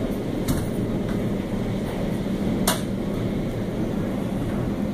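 Automatic car wash's air-dryer blowers running, a steady low rush heard from inside the car. Two sharp clicks come about half a second and nearly three seconds in.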